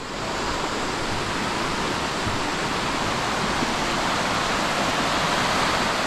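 Mountain stream rushing over rocks in small cascades: a steady, even rush of water.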